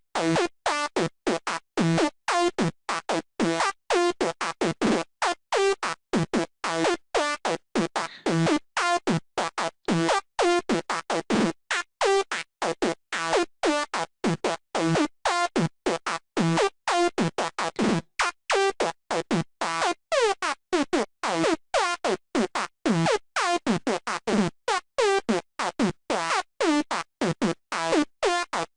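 Sylenth1 software synthesizer playing a high-pitched psytrance night full-on lead: a fast stream of short, sharply cut notes, each opening with a quick downward pitch drop from a pitch envelope. The patch runs through distortion, chorus and warm drive.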